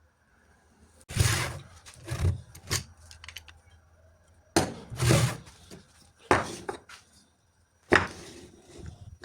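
Irregular knocks and thuds of wooden pieces being handled and set down on a workbench, about seven in all, in two or three clusters.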